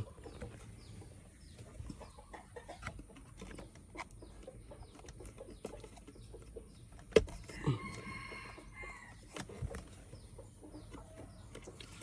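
Scattered light clicks and taps of hands working on steering-wheel trim and wiring, with one sharp knock about seven seconds in. Just after it a rooster crows once, for a little over a second.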